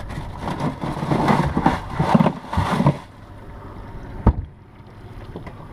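Rustling and knocking handling noise on a small fishing boat for about three seconds, then a steady low background and a single sharp thump about four seconds in.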